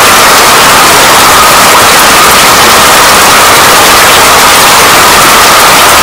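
Rain falling steadily, a loud, dense, even hiss with no breaks.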